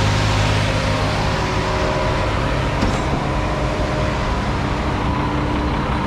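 Heavy truck machinery running steadily: a concrete pump truck pumping while a ready-mix truck discharges concrete into its hopper. A deep hum eases about a second in.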